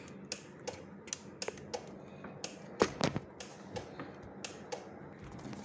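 Irregular light clicks and taps of small plastic and metal laptop parts being handled and fitted back together, with a louder pair of clicks about three seconds in.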